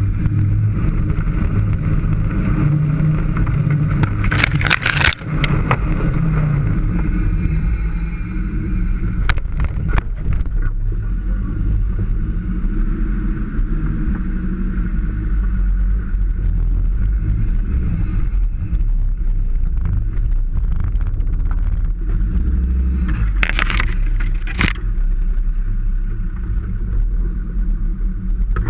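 Land Rover Defender engine running steadily at low revs while driving off-road. Sharp knocks and clatter break through a few times: around 4 to 5 seconds in, around 9 to 10 seconds in, and again near the end.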